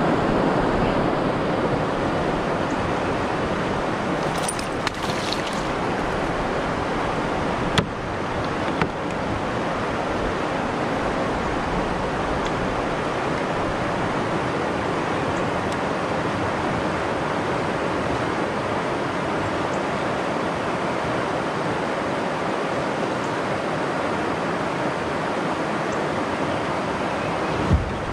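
Steady rush of wind on the microphone and water lapping around a kayak, with a few brief clicks or knocks.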